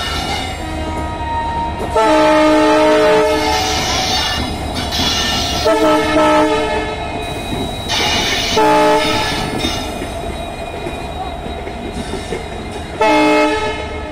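WDP4 diesel locomotive sounding its horn four times: a long blast about two seconds in, a short one near six seconds, a medium one near eight and a short one near the end. Between the blasts the steady rumble of the running engine and wheels carries on.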